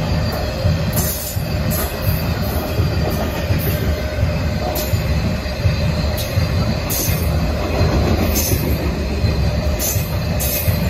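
Covered hopper cars of a long freight train rolling past close by: a steady low rumble of steel wheels on rail, with short high squeals from the wheels coming and going every second or so.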